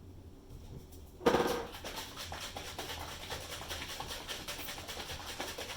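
Hairdryer switched on about a second in, with a brief motor whine, then blowing steadily with an even rushing noise to push paint across the canvas.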